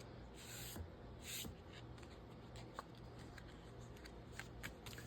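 Faint rustling of paper being handled, two short soft swishes in the first second and a half, with a few light ticks later.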